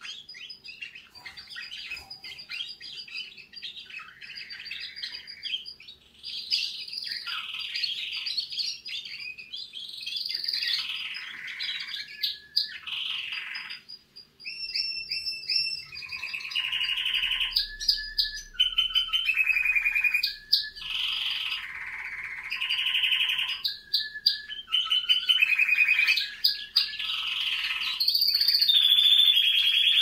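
Young domestic canary singing a long, continuous song of warbled phrases and rapid trills. The song grows louder about halfway through.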